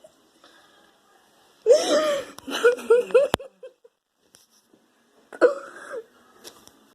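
A person's short pitched vocal sounds: one longer sound, then a quick run of four short ones, cut by a sharp click, and one more brief vocal sound near the end.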